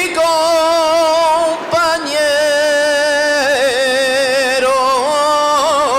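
Male flamenco cantaor singing a minera, a mining cante jondo, with no audible accompaniment. He draws out long melismatic notes with a wide vibrato, breaking off briefly for breath a little under two seconds in.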